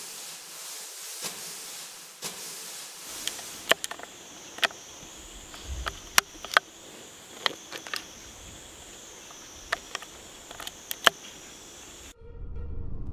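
Sharp metallic clicks, about a dozen in irregular groups, from the bolt and action of a .22 bolt-action rifle being handled and worked. Underneath is a steady, high, wavering insect buzz over a light hiss.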